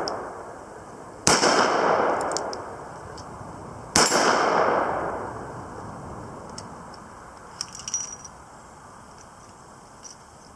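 Two .44 Magnum revolver shots about two and a half seconds apart, each with a long echoing tail. Later, a few light metallic clicks and clanks as the revolver is set down on a metal table and handled.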